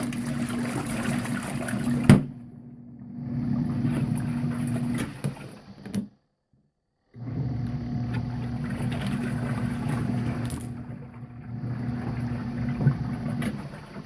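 Small portable washing machine running: a steady motor hum with water churning in the tub. It dips about two seconds in and cuts out completely for about a second midway.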